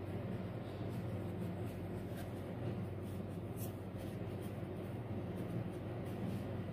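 Soft rubbing and handling sounds of pastry dough being laid and pressed into a baking dish, with a couple of faint clicks, over a steady low hum.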